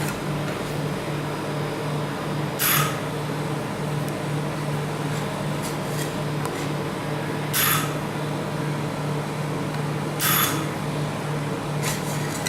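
Steady hum of a rolled-ice-cream cold plate's refrigeration unit, with three short scrapes of a metal spatula across the frozen plate several seconds apart.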